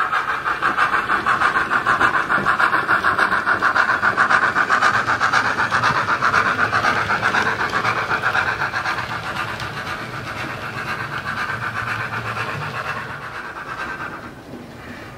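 Howes DCC sound decoder in a Hornby Standard Class 4 '4MT' model steam locomotive, playing fast, even steam exhaust chuffs through a 24mm bass-enhanced speaker in the tender as the model runs. It grows fainter over the last few seconds as the locomotive moves away.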